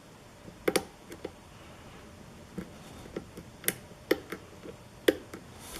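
Lock pick and tension wrench working the pins of a challenge lock: a string of sharp, irregularly spaced clicks as pin stacks are lifted and set.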